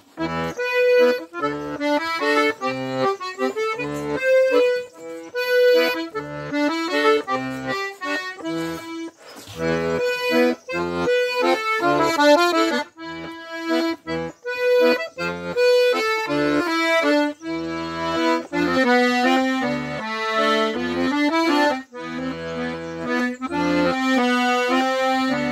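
Diatonic button accordion played solo: a waltz tune on the treble side over recurring bass notes and chords.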